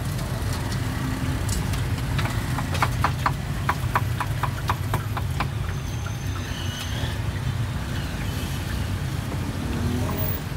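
Steady low motor rumble of street traffic, with a run of short, sharp light clicks, about two to three a second, from about two and a half to five and a half seconds in.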